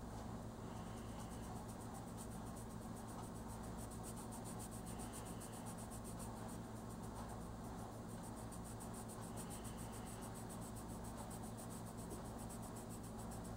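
Red oil-based colored pencil scratching softly across coloring-book paper in light, continuous shading strokes.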